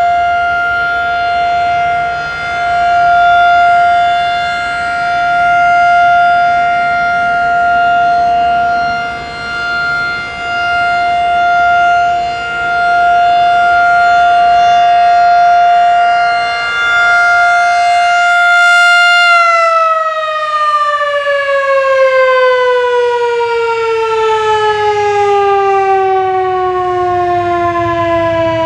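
Federal Signal 2001-SRN rotating outdoor warning siren sounding its steady 700 Hz alert tone, swelling and fading in loudness as it turns. About 19 seconds in, the alert cuts off and the siren winds down, its pitch sliding steadily lower.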